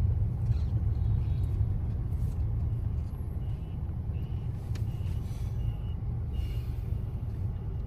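Low, steady rumble of a car's engine and tyres heard inside the cabin while creeping through city traffic, with a few faint short high beeps around the middle.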